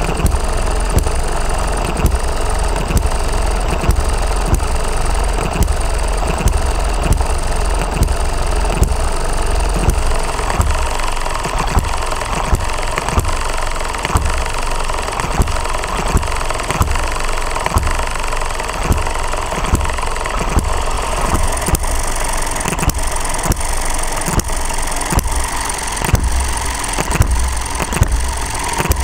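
Working model single-cylinder four-stroke hit-and-miss petrol engine ticking over, with a regular beat of sharp knocks. It fires with a pop only about every fifth or sixth cycle and freewheels on its flywheels without fuel in between, as a hit-and-miss engine does.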